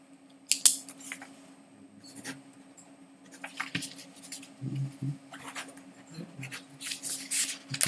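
Scattered sharp clicks and short rustles over a steady low hum, with a loud click about half a second in and a denser patch of rustling near the end.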